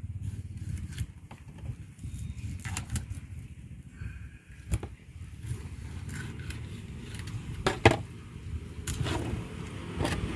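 Long knife cutting through a king fish (seer fish): scraping strokes of the blade along the fish and a few sharp knocks and clicks, the loudest a little before eight seconds in, over a steady low hum.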